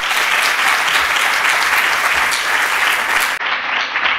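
Audience applause, a dense steady clapping that begins to die down near the end.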